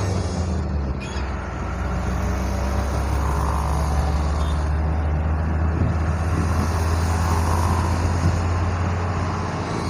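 Delivery truck engine running steadily as it drives along, with a strong low hum and road noise.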